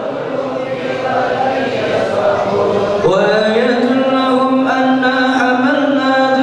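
Many men's voices chanting Arabic devotional words in unison, in long drawn-out phrases; a new, louder phrase begins about three seconds in with a rise in pitch.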